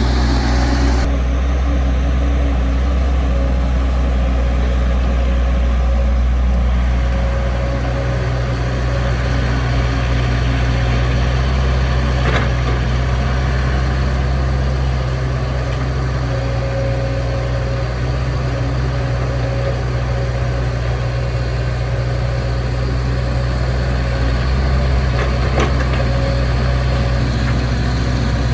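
Heavy diesel engine running steadily at an even, low pitch, with a few faint clicks.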